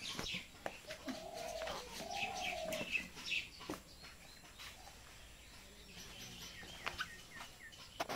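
Birds chirping in the background, with two longer, lower calls between about one and three seconds in, over light clicks and rustling from hands mixing grated coconut and sugar on a plate.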